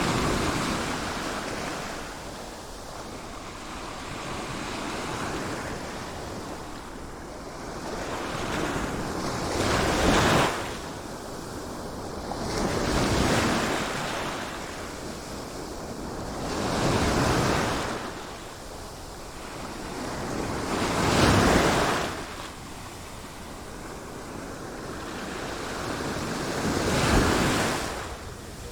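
Ocean waves breaking on a shore, one surge after another every few seconds, each swelling up and washing back, with a few sharper crashes.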